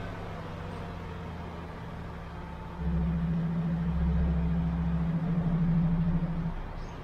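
MAN truck's diesel engine running at low speed while the truck manoeuvres. It gets louder about three seconds in, holds a steady low hum, and eases off shortly before the end.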